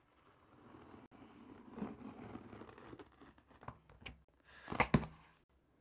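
Scissors blade slitting packing tape on a cardboard box, a soft scraping rasp, followed near the end by a short, louder tearing rip as the taped box is pulled open.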